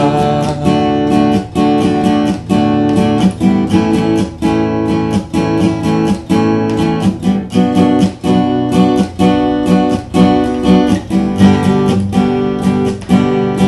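Acoustic guitar strummed in a steady rhythm, chords ringing between the strokes, with no singing.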